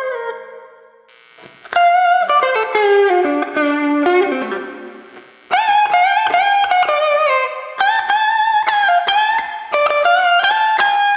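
PRS Silver Sky SE electric guitar with single-coil pickups playing Strat-style blues licks: single-note phrases with string bends, through a lightly overdriven amp. The first note dies away, then a new lick starts just before two seconds in and another about halfway through.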